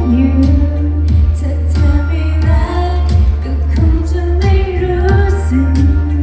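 A woman singing a Thai pop song with a live band. Her sung melody runs over a steady bass and a kick drum beating about twice a second.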